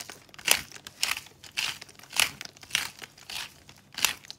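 Black pepper being ground from a glass pepper grinder over a steel bowl of broccoli and cauliflower, in short crunching strokes about twice a second.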